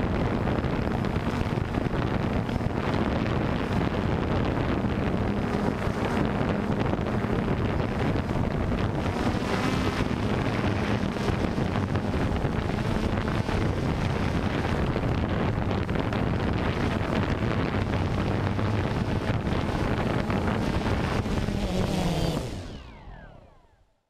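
A camera drone's motors and propellers running steadily, heard with wind rushing over the onboard microphone; the sound fades out over the last two seconds.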